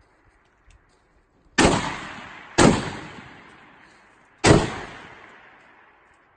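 Three loud rifle shots from a firing line, the second about a second after the first and the third about two seconds later, each fading away in a long echo.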